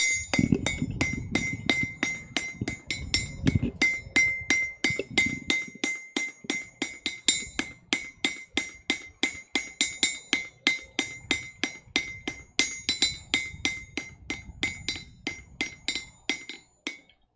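A blacksmith's hammer strikes steel on an anvil in a steady rhythm of about three blows a second. Each blow rings out high and metallic.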